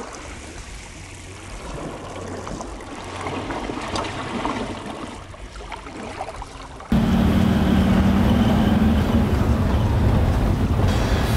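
Small waves washing onto a beach at the water's edge. About seven seconds in, a much louder steady rumble cuts in suddenly and takes over.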